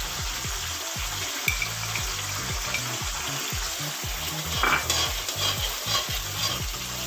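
Tamarind gravy bubbling and sizzling in a wok while a flat metal spatula stirs it. In the second half the spatula scrapes and clicks against the pan several times.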